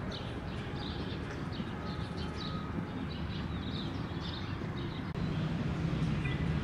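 Small birds chirping over a steady low rumble of city traffic; about five seconds in, the traffic grows louder and the chirping fades.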